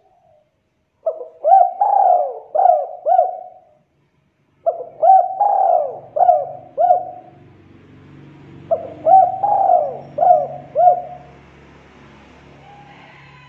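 Spotted dove cooing: three phrases of about five notes each, a second or so apart, each note swooping up and down.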